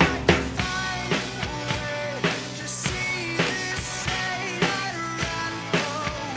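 Rock music played on a drum kit, with a sung melody. A run of fast, even drum hits ends right at the start, then the voice comes in, sliding between notes over a steady beat.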